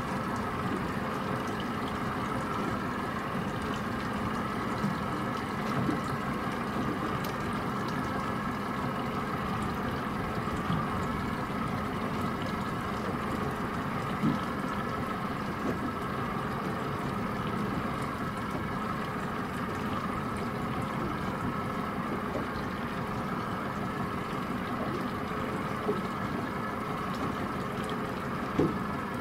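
A ship's diesel engine running steadily: a constant hum with a droning whine above it, broken by a few brief knocks.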